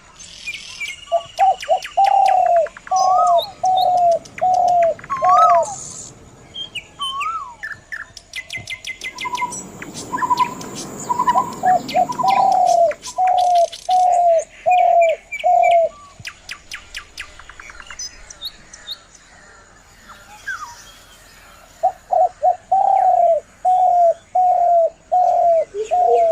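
Morning birdsong: one bird calls a series of six to eight loud repeated notes three times over, while smaller birds chirp and trill higher up. A soft rushing noise comes in briefly near the middle.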